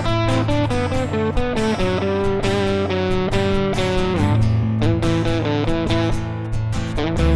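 An indie rock band playing live, with no vocals: electric guitar picking a quickly changing run of notes over a sustained low note and a steady rhythm.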